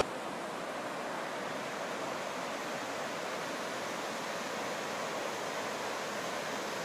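Stream tumbling over rocks, a steady rush of water.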